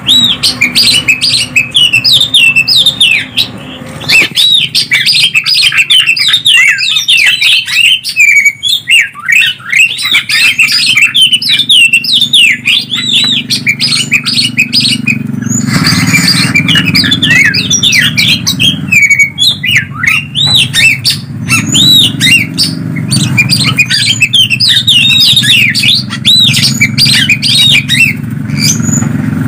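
Greater green leafbird (cucak ijo) and oriental magpie-robin (kacer) singing non-stop, a loud, fast stream of varied whistles, chirps and squawky notes. A low hum runs underneath from about halfway through.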